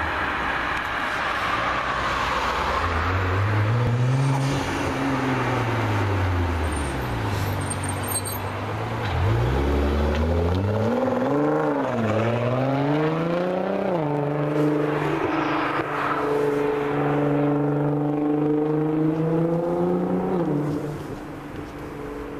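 Nissan GT-R R35's twin-turbo V6 engine revving and accelerating, its pitch rising and falling several times, then holding steady before dropping off and fading near the end.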